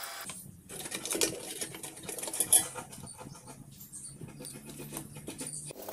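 Irregular small clicks, scrapes and rattles of metal and plastic parts as a rice cooker's switch and thermostat assembly is handled and lifted out of the cooker body.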